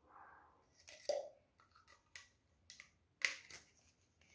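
Handling of a set of drill bits and their packaging: a soft rustle, then a few short, light clicks and knocks, the loudest a little past three seconds in.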